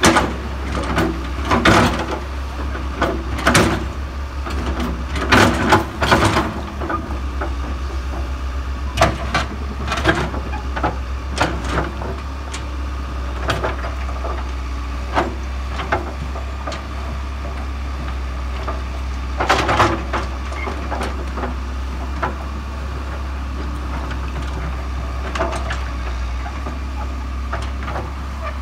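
Case tracked excavator's diesel engine running at a steady low drone, while its bucket scrapes and knocks against rocks and dirt in irregular bursts as it digs out the bank.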